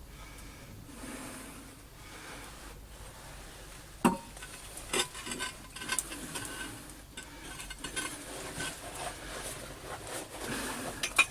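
Metal objects being handled and set down on a hard surface: a sharp knock about four seconds in, then a run of irregular clinks and knocks.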